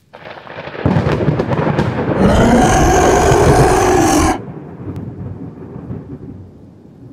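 Thunder sound effect for an intro: a crash of thunder rumbling loudly, with a pitched, wavering cry layered over it about two seconds in that cuts off suddenly, after which the rumble fades away.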